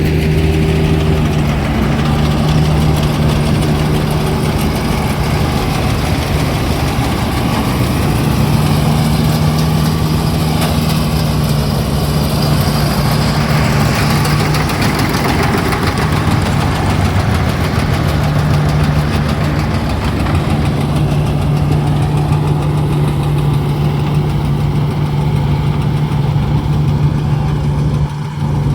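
Engine running steadily with a constant low hum and mechanical clatter, dipping briefly near the end.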